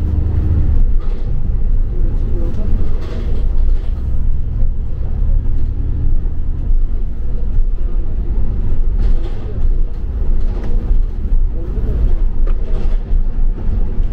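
Double-decker bus on the move, heard from on board: a steady low rumble of engine and road noise.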